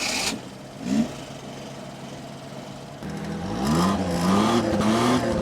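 Car engine idling with a brief throttle blip about a second in. About three seconds in it is revved: the pitch rises and holds at higher revs, louder.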